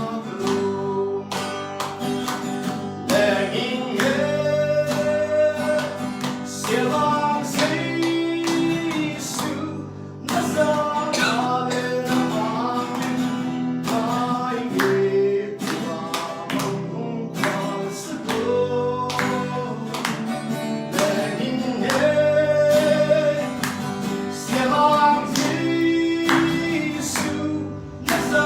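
Worship song: a voice singing over strummed guitar with a steady beat.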